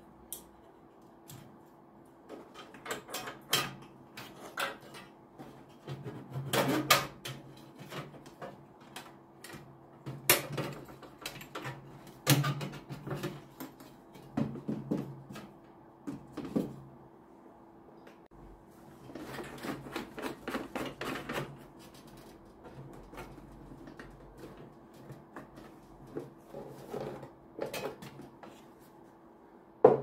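Hands dismantling a diesel air heater's casing: irregular clicks, knocks and scrapes of a sheet-metal cover plate and plastic housing parts being handled and pulled apart. A denser run of rattling comes about two-thirds through.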